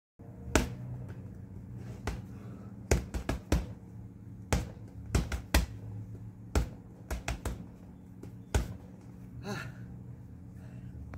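Boxing gloves punching a hanging heavy bag: about fifteen sharp thuds at an irregular pace, several in quick runs of two to four, with the last one coming a couple of seconds before the end.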